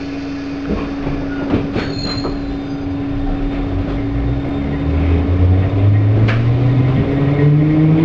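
London Underground D stock train pulling away from a standstill, heard from inside the carriage. A steady hum runs throughout, with a few clanks. From about three seconds in, the traction motors give a whine that rises in pitch as the train picks up speed.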